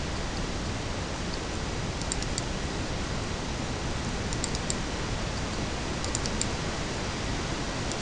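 IDE hard disk drive in an external enclosure running under a steady hiss, with small clusters of two or three faint high ticks about every two seconds as its heads seek.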